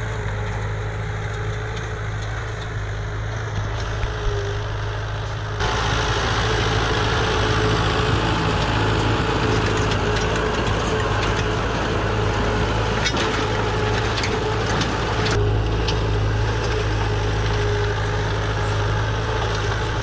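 New Holland 640 tractor's diesel engine running steadily under load as it pulls an 18-disc harrow through the soil. The sound steps up abruptly about a quarter of the way in and shifts again about three-quarters through.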